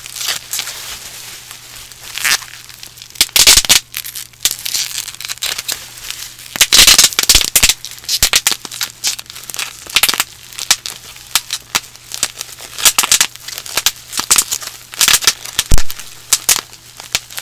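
Plastic bubble wrap being popped by hand close to a microphone: irregular sharp pops, some singly and some in quick clusters, over the crinkling of the plastic sheet.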